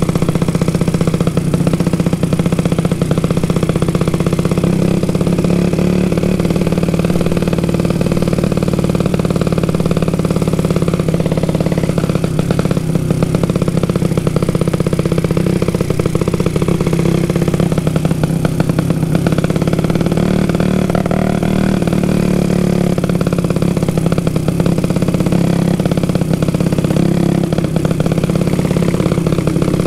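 Small carburetted motorcycle, its exhaust modified to make it sound like a helicopter, running steadily under way as it is ridden: a loud, rapid pulsing beat that rises and falls slightly with the throttle.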